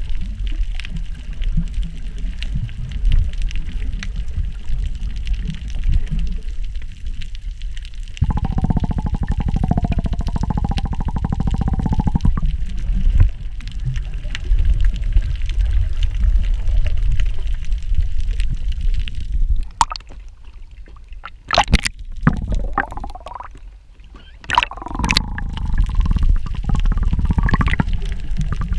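Muffled water sounds picked up by a camera held underwater: a steady low rumble, with a harsher buzzing stretch of about four seconds starting around eight seconds in, then a quieter spell broken by a few sharp splashes about three-quarters of the way through.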